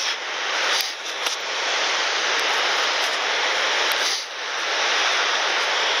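Gullfoss waterfall's steady rush of falling water, an even hiss that dips briefly about a second in and again about four seconds in.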